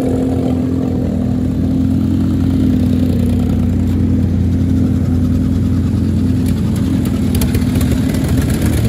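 Small engines of off-road dune buggies idling steadily, with a few faint ticks near the end.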